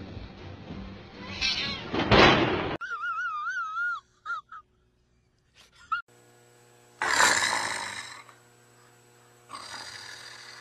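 Coyote snarling in two harsh bursts in the second half, each about a second long. Before it come a short rasping noise and a wavering high whine, then a brief gap.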